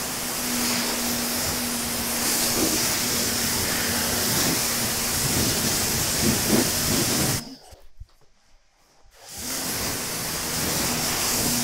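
EGO Power+ 3200 PSI battery pressure washer spraying water onto a car through a 40-degree nozzle in turbo mode: a steady hiss of the jet over a steady hum. The spray stops for about two seconds a little past the middle, then starts again.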